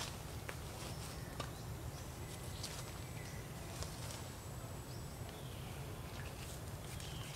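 Outdoor ambience: a steady low rumble with scattered small clicks and a few short, faint high chirps.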